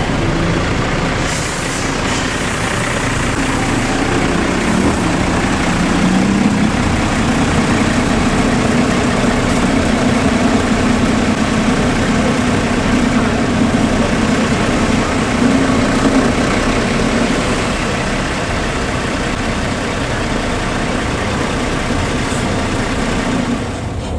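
Heavy bus diesel engine running, its hum rising in pitch a few seconds in and then holding steady. A brief hiss sounds about a second and a half in.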